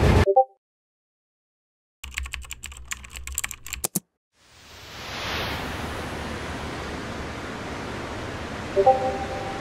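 Computer keyboard typing, a quick run of key clicks lasting about two seconds. A few seconds in, a steady rushing noise swells up and holds, with a short chime near the end.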